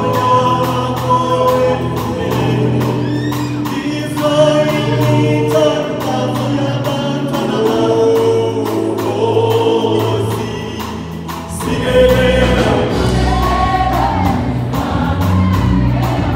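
Gospel choir singing live in harmony, with lead singers amplified through microphones. A deep bass comes in about three-quarters of the way through.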